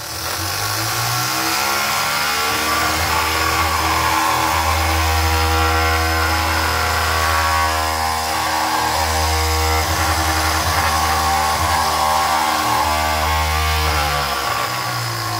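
Small electric motor spinning the boat's gyroscope flywheel. It winds up in pitch over the first couple of seconds, then runs steadily with a buzzing hum and whine, and its pitch sags a little near the end.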